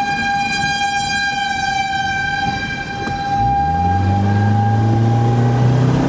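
Outdoor tornado warning siren sounding a steady high tone. About three and a half seconds in, a deeper tone starts, slides up in pitch, levels off and becomes the loudest sound.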